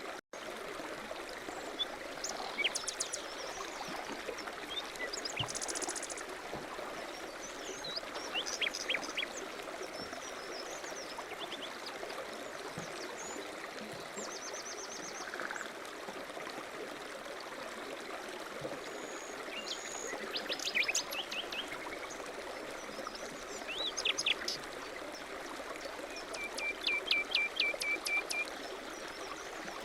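Steady running water with small birds chirping at intervals, ending in a run of quick repeated chirps. The sound cuts out for an instant right at the start.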